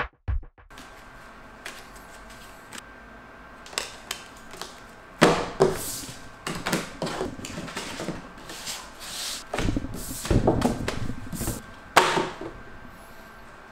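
An electronic drum beat cuts off just after the start. Then playing cards are dealt, slapped and slid onto a tabletop one after another: a string of irregular sharp taps and swishes over a steady room hum, busiest in the second half.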